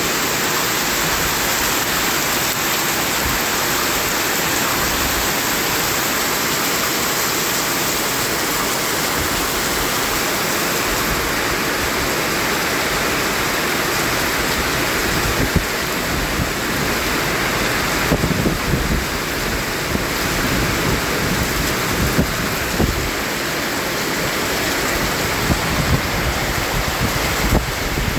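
Continuous white noise for sleep: a steady, rain-like hiss. From about halfway on, short low rumbles come and go under it.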